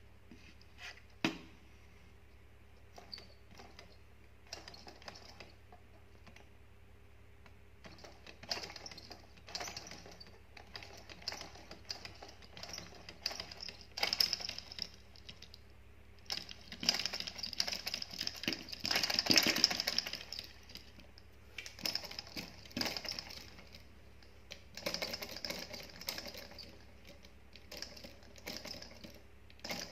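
Homemade solenoid engine running in fits and starts: the syringe plunger and the spring contact at the flywheel clatter in fast runs of clicks that come and go, loudest a little past the middle.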